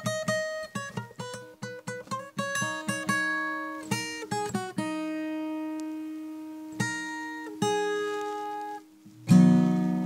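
Acoustic guitar music: picked single notes, a note left ringing for a couple of seconds midway, a brief pause, then louder strummed chords near the end.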